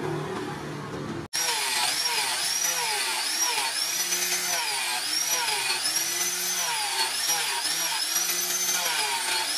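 Electric angle grinder with a sanding disc running against a wooden knife handle. It starts about a second in, and its whine keeps dipping and recovering in pitch as the disc is pressed into the wood and eased off.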